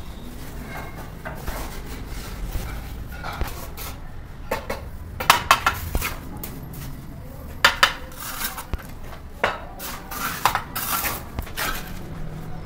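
Steel bricklaying trowel clinking and scraping against clay bricks and mortar as bricks are set and tapped into a mortar bed: irregular sharp clinks and short scrapes, the loudest about five and eight seconds in.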